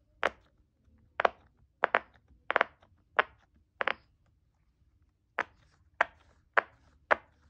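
Square silicone pop-it fidget toy, its bubbles pushed through one after another by fingers, each giving a sharp pop. About three pops every two seconds, with a pause of about a second and a half midway, then the popping resumes.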